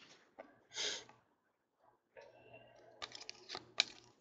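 Faint handling of trading cards and a foil card pack: a soft swish about a second in, then a run of small sharp clicks and crinkles as the pack is worked open.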